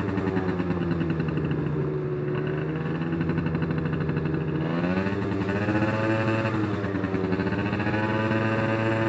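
Sachs Speedjet RS moped-class scooter engine running at low riding speed. Its pitch sags slightly, then rises about five seconds in as the throttle opens, and holds steady.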